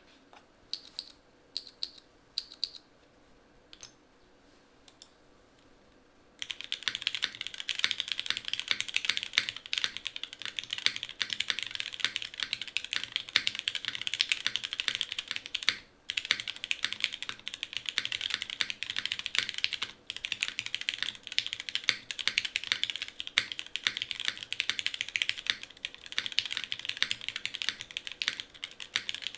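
Typing on a Geonworks F2-84 mechanical keyboard with an aluminium plate, lubed and filmed Cherry MX Black Hyperglide linear switches and GMK Perestroika keycaps. A few single keystrokes come first, then fast continuous typing starts about six seconds in, pausing briefly twice.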